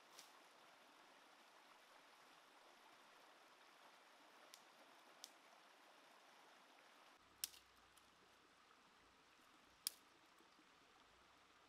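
Near silence: a faint steady outdoor hiss, broken by a few sparse sharp clicks and knocks. The two loudest come in the second half.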